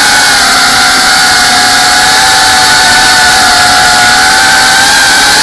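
iFlight Cinelog 35 cinewhoop's brushless motors and ducted 3.5-inch propellers whining loudly, heard from the camera on board: a steady high buzz that holds near one pitch, wavering slightly with the throttle.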